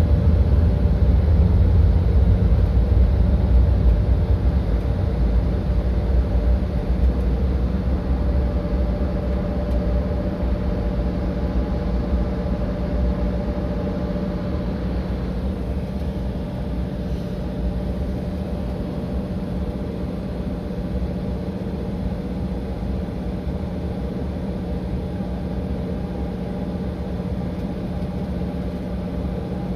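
Cabin noise of an Embraer E-Jet regional airliner under power: a steady jet-engine drone with a low rumble and a constant hum. The rumble is loudest at first and eases over the first half, then holds steady.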